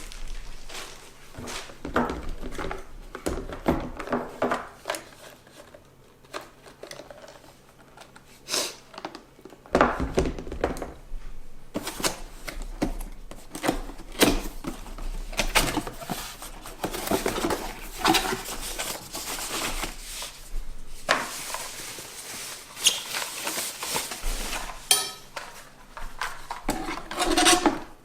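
Two OXO electric kettles, a stainless-steel gooseneck and a glass one, being handled: an irregular clatter of knocks and clinks, like pots and dishes being moved.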